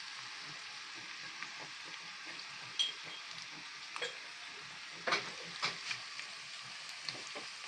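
Beef chunks sizzling steadily in oil in an open multicooker bowl, frying now that the water has cooked off the meat, with a few sharper pops about three to six seconds in.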